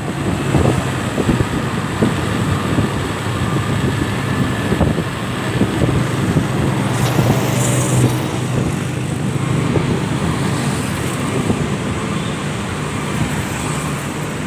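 Road traffic noise with a vehicle engine running steadily, a continuous low rumble.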